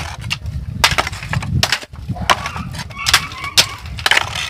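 Curved terracotta roof tiles clinking and clattering against each other as they are lifted and moved by hand on a tiled roof, an irregular run of sharp knocks.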